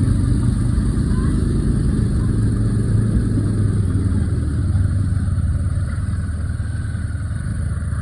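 A motor vehicle running steadily: a continuous low engine rumble with road noise.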